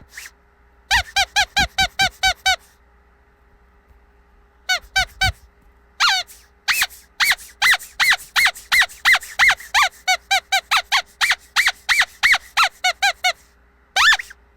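Squeaky dog toy squeezed over and over, giving short pitched squeaks in quick runs with brief pauses between them. There is a long run near the middle at about three squeaks a second.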